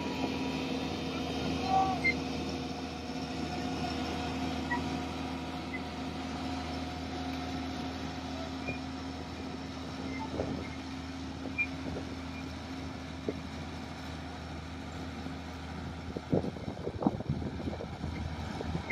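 Heavy diesel engine running steadily at a constant pitch, with a run of sharp knocks and clatters in the last few seconds.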